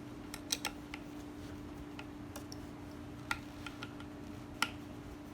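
Scattered light clicks and ticks at irregular intervals, the sharpest about half a second in, about three seconds in and near the end, over a steady low hum.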